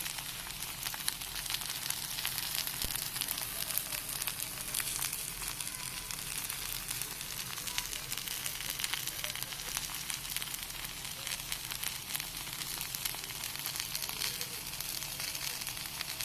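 Takoyaki frying in a takoyaki pan: steady sizzling with a dense crackle of tiny pops.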